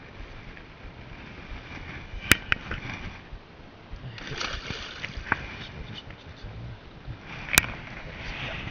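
Water splashing and sloshing as a hooked pike is landed by hand at the water's edge, with two sharp knocks, one about two seconds in and one near the end.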